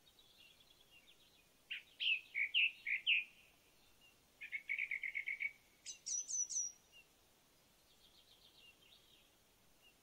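Woodland songbirds singing: a loud phrase of varied clear notes, then a fast even trill, then a few high descending notes, with fainter trills from farther birds near the start and end.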